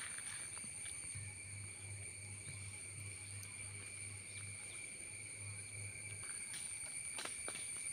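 Steady, even shrill of a forest insect chorus, one high tone with fainter overtones, holding level throughout. A faint low hum joins for several seconds in the middle, and there are a couple of faint clicks near the end.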